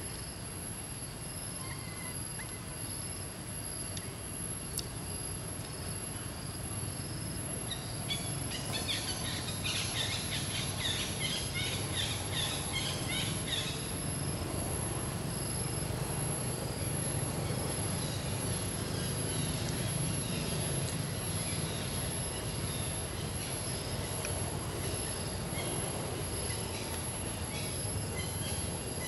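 Outdoor ambience: a steady low rumble under a thin, constant high whine, with a flurry of bird chirps between about 8 and 14 seconds in.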